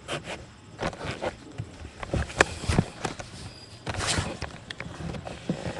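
Irregular footsteps and knocks with rustling handling noise, as someone carrying the camera moves about on a staircase; the sharpest knocks come a couple of seconds in.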